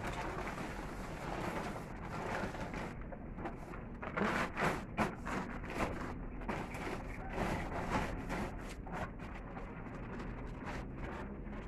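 Plastic tarpaulin rustling and crinkling as it is pulled and spread by hand, with a cluster of louder crackles about four to five seconds in.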